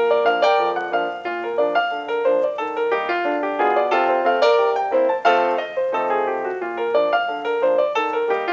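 Piano music with a busy run of quick, short notes and chords, and no speech.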